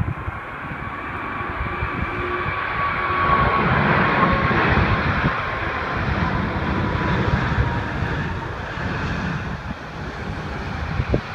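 Airbus A340-600's four Rolls-Royce Trent 500 turbofans on final approach: a jet rumble with a thin high whine, growing loudest about four seconds in and then easing off. Gusts of wind buffet the microphone.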